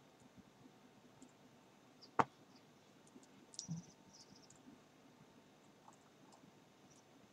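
Computer mouse clicking: one sharp click about two seconds in, with a few fainter clicks around it over quiet room tone.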